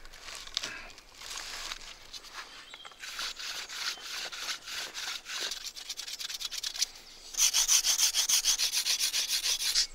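Sandstone rubbed back and forth along a wooden bow stave to smooth it. Slower, uneven strokes come first; near the end they turn into louder, quick, even strokes of about eight a second.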